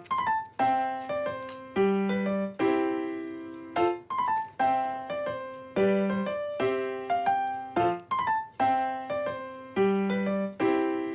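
Background piano music: a gentle phrase of struck notes that die away, repeating about every four seconds.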